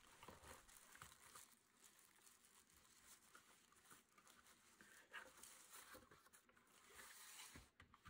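Faint crinkling and rustling of a thin plastic wrap sheet as it is pulled back from a keyboard in its cardboard box, with a couple of light knocks near the end as the keyboard is lifted out.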